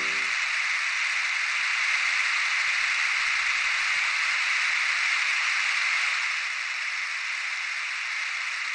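A dense chorus of autumn singing insects, heard as a steady high-pitched shimmering hiss. It comes in as the accompaniment stops and drops a little in level about two-thirds of the way through.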